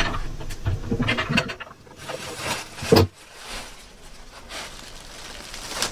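Footsteps and rustling of someone moving on carpet and getting down low, with one sharp thump about three seconds in.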